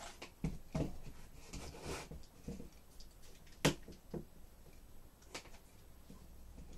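Scattered light clicks and knocks of a small device being handled and fitted onto a mini tripod on a bench. One sharper knock comes a little past halfway.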